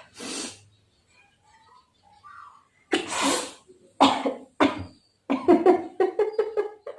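A woman sneezing and coughing as cotton tickles her nose: a long loud burst about three seconds in, two sharp bursts after it, then a quick run of short bursts near the end.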